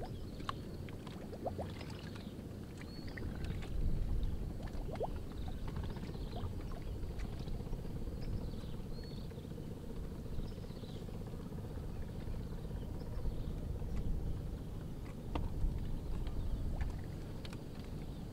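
Steady low outdoor rumble from the water around a floating bamboo platform, with faint bird chirps now and then and a few light taps as fish are laid out on a bamboo drying mat.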